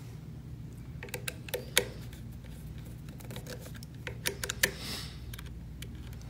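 Small sharp clicks and taps of a screwdriver and wire leads being worked into a small screw terminal block, in two clusters about a second in and about four seconds in, over a steady low hum.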